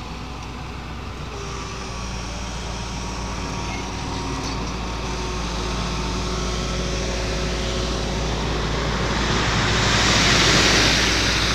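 Crawler piling rig's engine running steadily and growing gradually louder, with a loud hiss swelling up about nine seconds in and easing off near the end.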